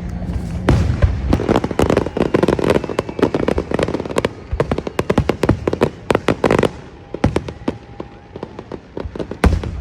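Fireworks going off: a fast run of cracks and pops for about six seconds, thinning out afterwards, with one sharp bang near the end.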